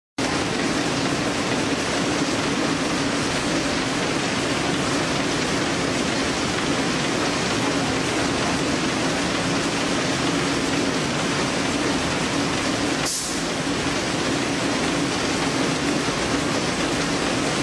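Viking Masek Velocity vertical form-fill-seal bagger with its Yamato multihead weigher, running continuously while bagging apple slices: a steady, even machine noise with a steady hum. A short, sharp high hiss comes about thirteen seconds in.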